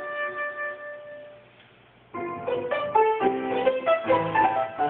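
An oboe's held note tapers away, and after a brief gap a piano comes in about two seconds in, playing quick struck notes and chords.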